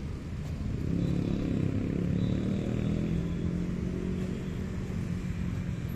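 Motorcycle engine running on the road, a steady engine hum that grows louder about a second in and then holds, over low road and wind noise.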